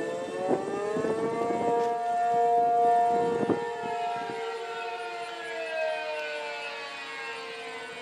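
ACA P-15 outdoor warning siren sounding the Attack signal while rotating. Its chord of tones rises in pitch over the first second or so and then holds. It swells loudest about two to three seconds in and fades slowly as the horn swings past.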